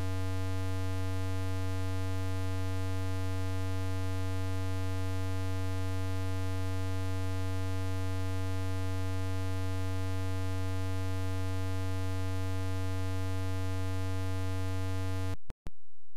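Steady low electrical hum with a ladder of overtones, unchanging in pitch and level, that cuts off suddenly near the end with a click or two.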